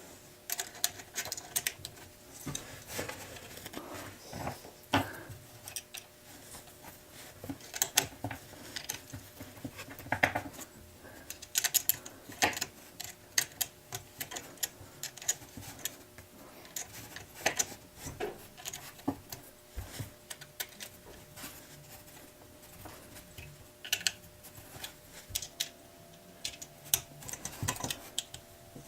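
Irregular small clicks and taps of metal parts, screws and hand tools as a support brace and the Z-axis limit switch plate are fastened onto a Creality CR10S 3D printer frame.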